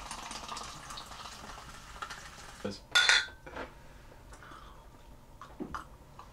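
A canned drink poured into glasses with a soft fizzing hiss, then a short sharp clink of glasses about three seconds in, followed by a few small knocks.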